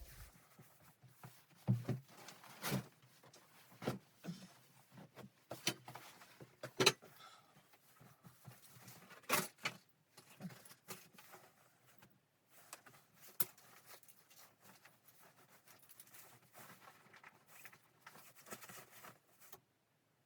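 A string of irregular knocks and clicks of objects being handled, the sharpest about two, four, seven and nine seconds in, with softer clatter between.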